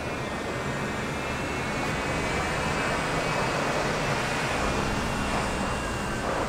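An SUV driving slowly by at low speed, a steady engine and tyre sound that swells slightly through the middle.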